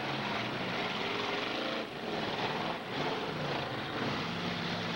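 Demolition derby cars' engines running and revving together in a dense, rough mechanical noise with a low engine hum, dipping briefly about two and three seconds in.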